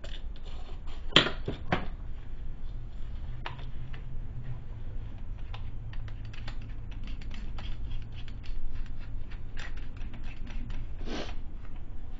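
Irregular light clicks and clatter of drill bits and tools being handled on a workbench while a bit is picked out and changed, with a few louder knocks.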